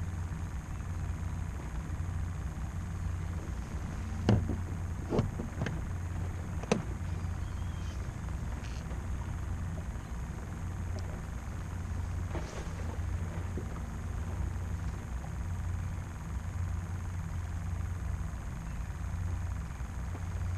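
A steady low hum, like a distant motor, with several sharp knocks: four between about four and seven seconds in, and a fainter one around twelve seconds.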